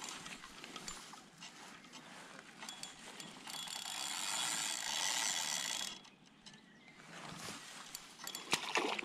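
Spinning fishing reel working while a hooked carp is played, a dense ratcheting run for about two and a half seconds in the middle, with scattered clicks before and after and a sharp click near the end.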